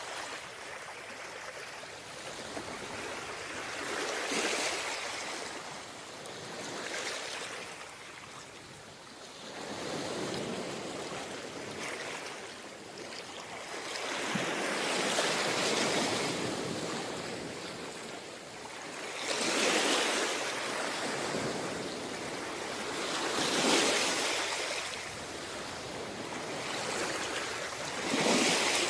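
Sea waves breaking and washing up on a beach, the surf swelling and falling away every few seconds.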